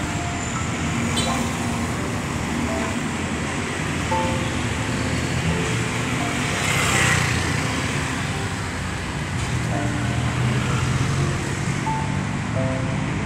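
Street traffic of cars and motorbikes moving through an intersection, swelling louder about halfway through, with background music playing over it.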